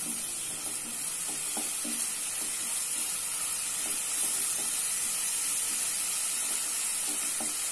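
Coarsely ground onion frying in hot oil with whole spices in a non-stick wok: a steady sizzle, with light scrapes of a silicone spatula stirring it now and then as it fries toward golden brown.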